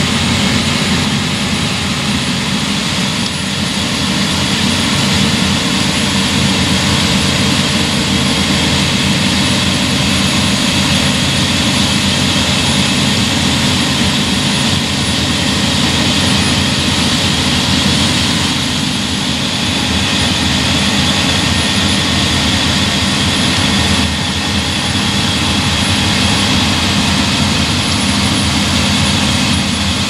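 Claas Lexion 7400 combine harvester running steadily while harvesting barley: a deep, even engine drone under a broad rushing noise, with a thin high whine above it.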